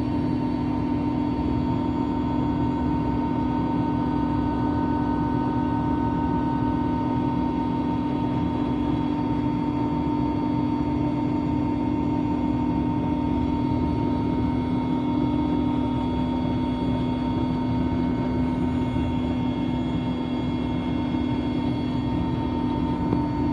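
Helicopter in flight, heard from on board: its engine and rotor make a steady drone with a strong low hum.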